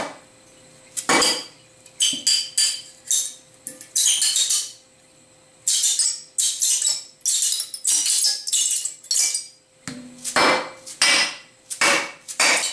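Hammer blows on a machined aluminum plate, knocking machined pieces free of it. The strikes are sharp and metallic and come irregularly, with a short lull about five seconds in, then quicker runs of blows.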